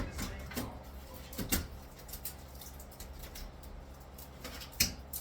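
Scattered light knocks, clicks and scrapes of hand work on a bathroom wall during demolition, with one sharper knock near the end.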